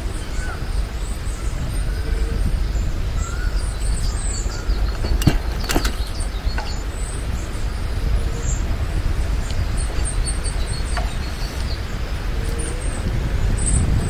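Small birds chirping in the trees, short high calls scattered throughout, over a steady low rumble from riding along the path. A couple of sharp clicks come about five to six seconds in.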